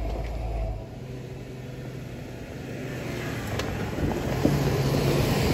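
Jeep engine running at crawling speed over rocks, a steady low rumble that drops away about a second in and builds again toward the end, with a couple of sharp knocks.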